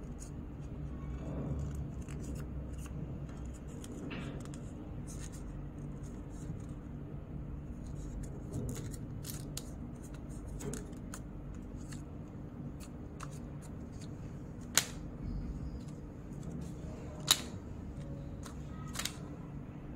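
Folded paper crackling and crinkling as a paper jet airplane is handled and its tail fins pressed into shape. Scattered sharp crinkles come throughout, with two louder snaps about 15 and 17 seconds in, over a steady low hum.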